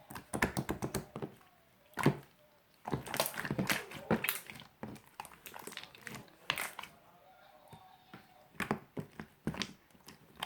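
Purple marbled slime being squeezed and worked by hand, giving several bursts of quick wet clicks and pops with short quiet gaps between them.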